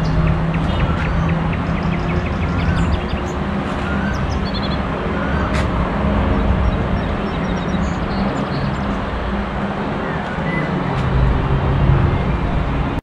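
Outdoor ambience: a steady low rumble of road traffic, with small birds chirping now and then and a single click about five and a half seconds in.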